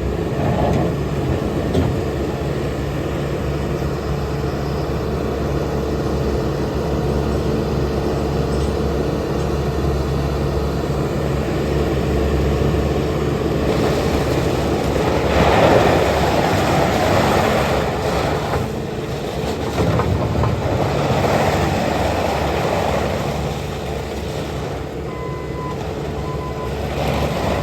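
Bobcat S850 skid steer loader's diesel engine running steadily, swelling louder for a few seconds at a time around the middle. Two short high beeps sound near the end.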